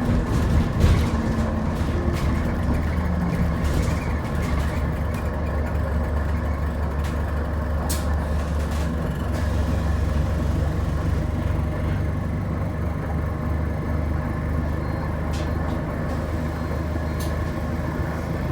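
Cabin noise of an Alexander Dennis Enviro400H City hybrid double-decker bus on the move: a steady low drone with several steady whining tones over it, the weird running sound the uploader notes on this bus type. A few sharp ticks or rattles are heard along the way.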